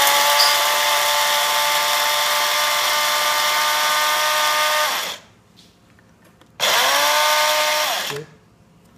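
Electric blade coffee grinder grinding whole coffee beans while its lid button is held down: the motor spins up, runs steadily for about five seconds and winds down, then after a short pause gives a second, shorter burst of about a second and a half.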